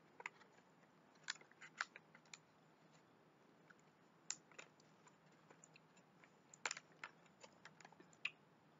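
Faint, scattered crunches and clicks of someone chewing crunchy baobab and raspberry clusters with pumpkin seeds, with a plastic fork now and then clicking in the plastic snack tray.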